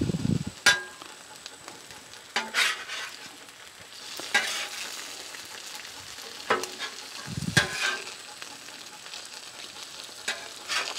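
Sliced steak and cheese sizzling on a Blackstone flat-top griddle, with a metal spatula scraping and clacking against the steel cooktop about half a dozen times.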